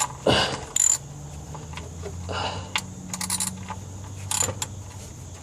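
Socket wrench and extension clinking and clicking, metal on metal, as the extension is fitted and set onto the oil drain plug.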